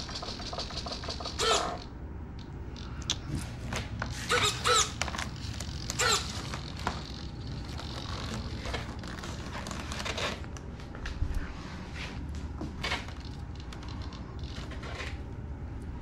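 Clicks, knocks and creaks of a foam RC airplane being handled and turned on a table, with a few short pitched whirs in the first half.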